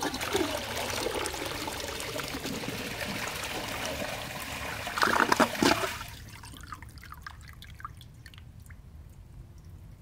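A 2002 Ferguson toilet flushing: water rushes into the bowl for about six seconds, loudest in a final burst just before it stops, then the bowl trickles and drips as it settles.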